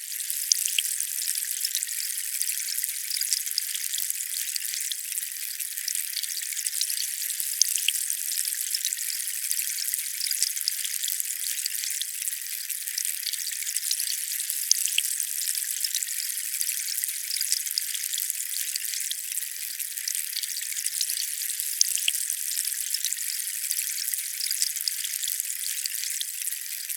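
Steady hiss of splashing water with small droplet ticks scattered through it, all high and thin with no low rumble.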